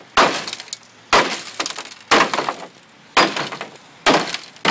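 A claw hammer striking the broken remains of an iPhone 3GS five times, about once a second, each blow landing with a sharp crack and a brief crunch of glass and metal fragments on a plastic pool floor.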